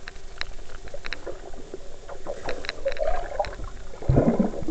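Underwater sound picked up through an action camera's waterproof housing: scattered sharp clicks and bubbling, with a louder, deeper rush of bubbles near the end as a swimmer moves right up against the camera.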